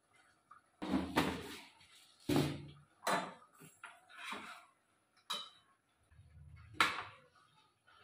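A spoon scraping and knocking against a cooking pot as chunks of pumpkin are stirred: about six separate scrapes and clanks at irregular intervals.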